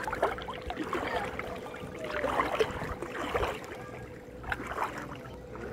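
Sea water sloshing and splashing in irregular bursts around a person wading and swimming in shallow water.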